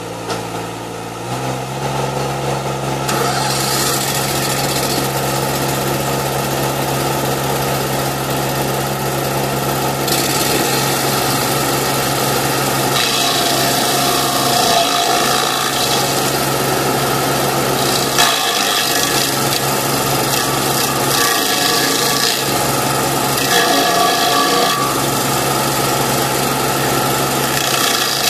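Kanga mini loader engine running under load while its Terminator stump grinder cuts into a tree stump, a steady engine note under a harsh grinding of wood. The engine picks up about a second in, the grinding starts a couple of seconds later, and it grows heavier in several surges as the cutter is worked across the stump.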